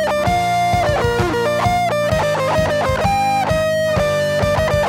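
Instrumental break of a metal song: a guitar plays a melodic lead line over steady bass notes.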